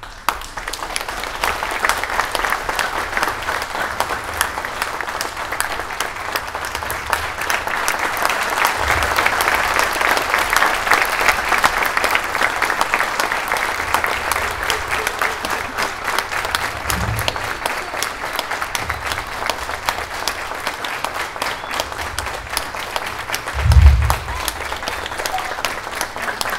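Audience applauding, starting abruptly and swelling toward the middle before easing slightly. A single low thump sounds near the end.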